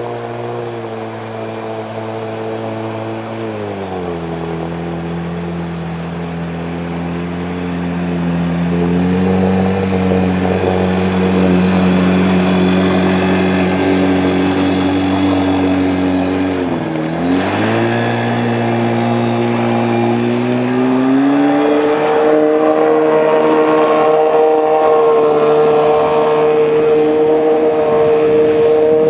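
Outboard motor with a water-jet drive running hard as it pushes an inflatable boat upstream through shallow rapids. Its pitch drops about four seconds in and holds. Around the middle it dips sharply and recovers, then climbs to a higher steady note for the last several seconds.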